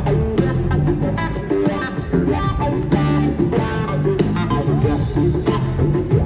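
Live rock band playing an extended jam: electric guitar lines over bass and a steady drum beat.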